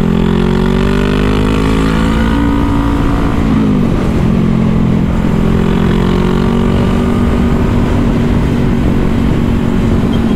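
Motorcycle engine under way, its pitch climbing steadily for about three and a half seconds, then dropping sharply at an upshift and holding steady as the bike cruises. A constant low wind rumble runs underneath.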